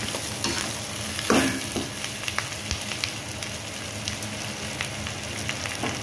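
Sliced onions, green chillies and raw mango pieces sizzling steadily in hot oil in a kadhai. A spatula scrapes and clicks against the pan a few times in the first few seconds as they are stirred together.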